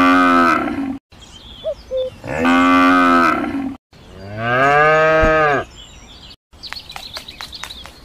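Cows mooing: three long moos one after another, the last one lower. Near the end, a run of quick sharp taps, about four a second.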